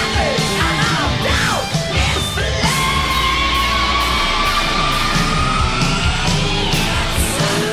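Heavy rock music with yelled vocals; a long held note rises slightly from about three seconds in to about six.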